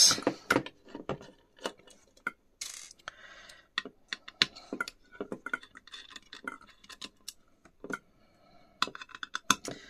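Scattered small metal clicks and clinks of a screwdriver and tiny Torx screws being worked and set down while a hard drive's control board is unscrewed, with a short scraping rustle about three seconds in.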